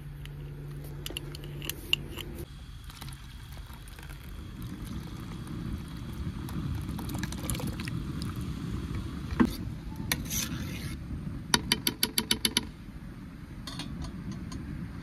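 Cooking handling noises: scattered clinks and taps of utensils over a low rumble. A little past the middle comes a quick, even run of about eight sharp taps.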